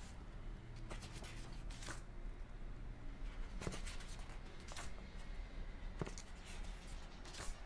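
Pages of a large paperback book being turned one after another, each turn a brief papery flap or swish, about six in all, over a low steady hum.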